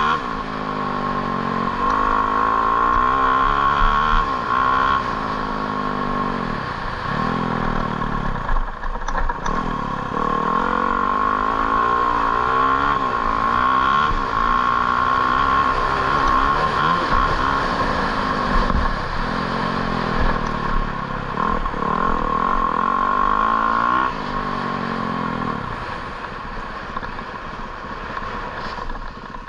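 An engine revving up and dropping back again and again, its pitch climbing and falling every few seconds, with a steady high whine over it. It eases off near the end.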